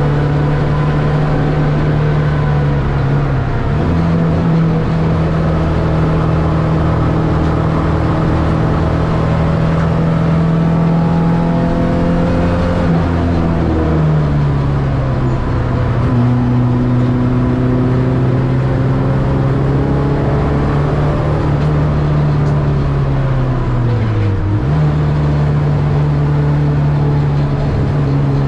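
Ford Escort XR3 race car's CVH four-cylinder engine running hard at high revs, heard from inside the cabin. The note holds steady for long stretches, steps up in pitch about four seconds in, drops to a lower note about halfway, then dips sharply and jumps back up a few seconds before the end.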